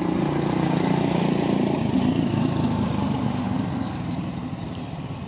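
Motor vehicle engine running steadily; its pitch wavers after about two seconds and the sound fades away near the end, as if the vehicle is moving off.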